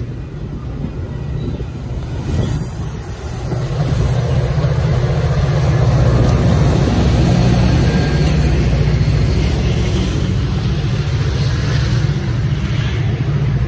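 Metra F40PH diesel locomotives running: a loud, steady low engine rumble with the sound of the passenger train moving, getting louder about four seconds in and holding.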